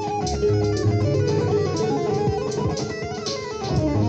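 Extended-range electric guitar played with two-handed tapping: quick runs of legato notes stepping up and down over steady held low tones, in a fusion style.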